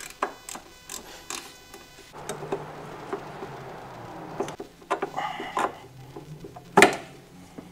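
Small clicks and rattles of hand work with pliers on a spring hose clamp and rubber hose at a clutch fluid reservoir, with one sharp click near the end. A steady low hum and hiss runs through the middle.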